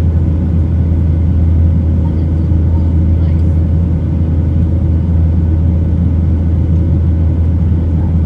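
Boeing 737-900's CFM56-7B engines and rushing airflow heard from a window seat over the wing in flight: a loud, steady, low cabin drone with no change in pitch.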